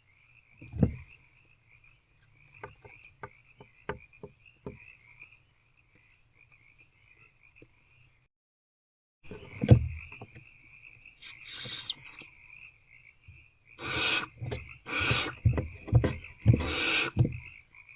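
Barn owls in a nest box giving several harsh, hissing screeches in the second half, with knocks and scratching from the birds moving on the box floor. A steady frog chorus trills behind them.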